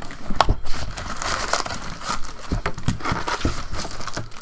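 Foil-wrapped trading card packs crinkling as they are pulled out of an opened hobby box and stacked by hand, with many short crackles.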